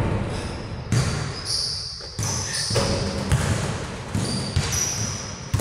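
Basketball bouncing on a hard indoor court, about once a second, each thud echoing in the big hall.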